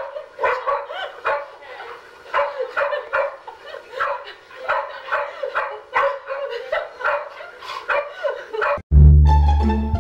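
A dog barking over and over in short, high yips, about three a second. About nine seconds in the barking cuts off and music with plucked low strings begins.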